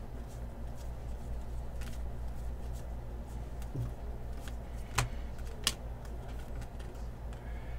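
Trading cards being handled at a table: faint sliding and small ticks, with two sharp clicks about five seconds in, over a steady low hum.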